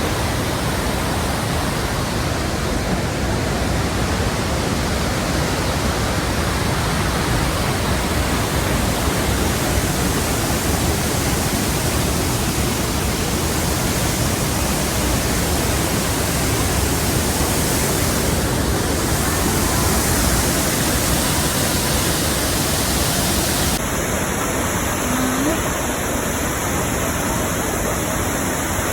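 Steady roar of the Krimml Waterfalls: a loud, unbroken rush of falling water.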